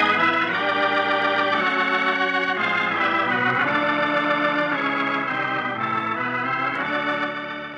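Organ music: held chords that change every second or so, fading down near the end.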